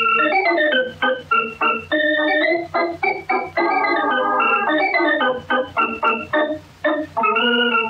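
Organ music bridge: a quick run of short chords, ending on a held chord near the end.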